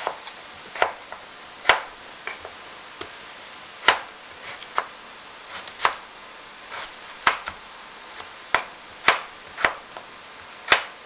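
Kitchen knife slicing a raw peeled potato into french-fry strips, the blade knocking on the cutting board in irregular strokes, some single and some in quick clusters.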